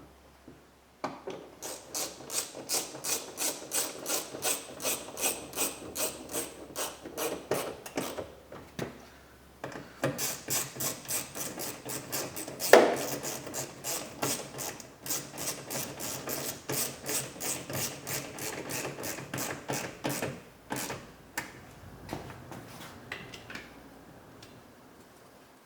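Socket ratchet clicking in quick, even strokes, about three to four clicks a second, as a fastener is run in. Two long runs with a short pause between, and one sharper knock partway through the second run.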